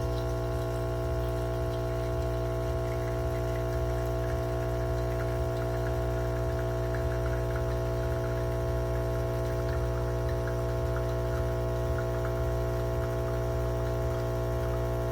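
Espresso machine's pump running with a steady hum, with a faint trickle of liquid over it.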